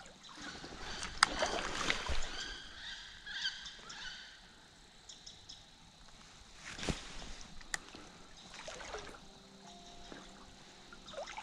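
Water sloshing and splashing as someone moves through flooded timber, with a few sharp knocks. Bird calls come through over the first few seconds.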